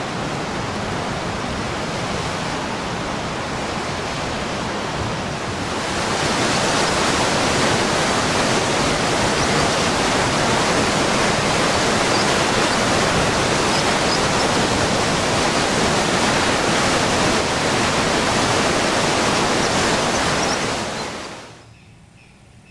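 Fast-flowing Fitzroy River floodwater rushing, a steady, even noise of turbulent water. It gets louder and hissier about six seconds in and drops away abruptly near the end.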